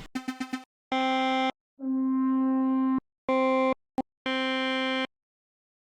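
Synth lead samples being auditioned one after another in Ableton's Simpler: a quick stutter of four short notes, then single held notes at about the same pitch, each with a different tone and each cut off sharply, with short gaps between them.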